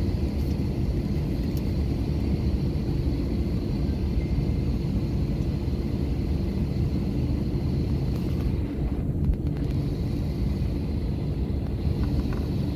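Airbus A321 cabin noise while the airliner rolls slowly on the ground: a steady low rumble from the engines and airframe, with a faint steady high whine over it.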